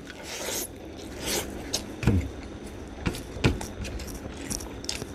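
Close-up eating sounds: a mouthful of rice and fried egg being chewed, with scattered wet clicks and small scrapes.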